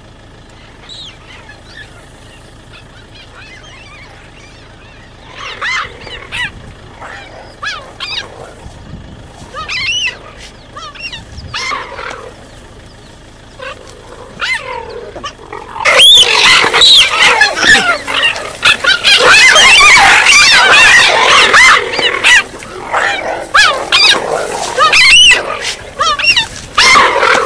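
A group of cheetahs calling: a few scattered short, high calls at first, then, a little over halfway, a loud dense chorus of squealing, chirping calls as several cheetahs scramble together.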